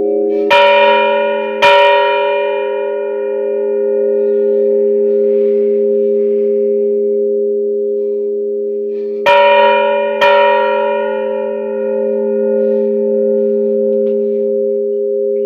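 Church bells rung in a repique: a steady ringing hum, with a bell struck twice near the start and twice more about nine seconds in, the strikes in each pair about a second apart, each one ringing out and fading.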